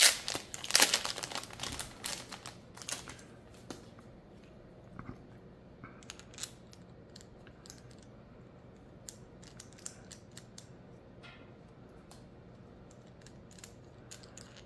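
Plastic packaging bag crinkling as small accessory parts are taken out over the first two or three seconds, followed by a few faint, scattered clicks of small plastic mount parts and a thumb screw being handled.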